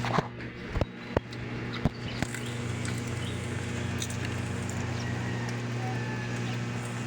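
Light rain falling, under a steady low hum. A few sharp knocks come in the first two seconds, and faint short bird chirps are heard later.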